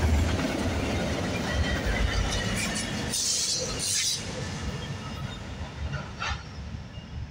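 Tail end of a freight train passing close by: autorack car wheels rumbling on the rails, then the rear distributed-power locomotive, a Norfolk Southern SD70ACC, goes by. A brief high hiss comes about three seconds in, and the rumble fades as the train moves away.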